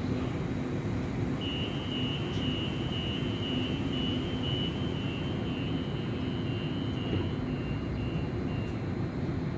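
Train running with a steady low rumble. Over it, a high beeping starts a second or so in and repeats about twice a second for some seven seconds, dropping slightly in pitch toward the end.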